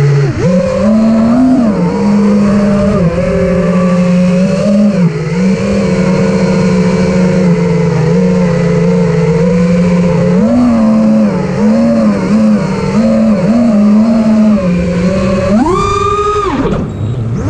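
Armattan Rooster FPV quadcopter's Brotherhobby Returner R6 motors and HQ 5.1x4.6x3 three-blade props buzzing in flight, the pitch wavering up and down with the throttle. Near the end it climbs sharply to a high whine under full throttle for about a second, then drops back.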